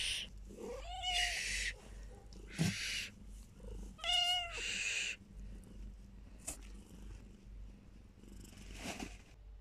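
A domestic cat in labour meowing, two drawn-out calls about a second in and about four seconds in, with short hiss-like noises between them and a fainter call near the end.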